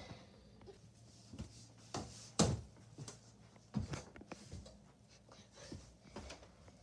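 Scattered knocks and rustles of plush toys and a handheld phone being moved about, the loudest about two and a half seconds in, over a faint steady low hum.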